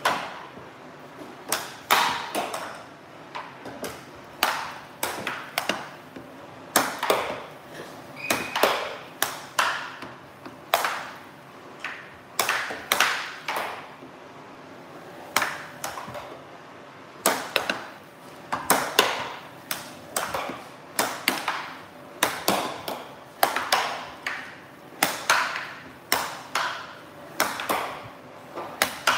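Air hockey puck being struck by plastic mallets and hitting the table rails: dozens of sharp plastic clacks at an irregular pace of about one or two a second, some with a short ring.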